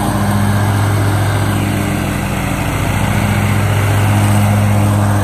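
Zero-turn riding lawn mower running steadily as it cuts grass, a continuous engine hum.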